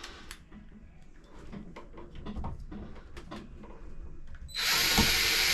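Small clicks and taps of a cover plate and screws being handled, then, about four and a half seconds in, a cordless drill/driver runs for about a second and a half, driving in a wall plate screw.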